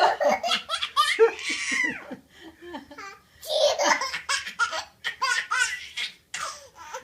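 Laughter, a toddler's among it, in two bouts: one at the start and another about halfway through.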